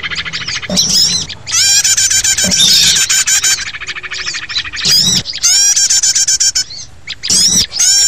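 Bird-lure recording of many small songbirds calling at once: dense, rapid, high chirping and twittering in bursts a second or two long with short lulls between.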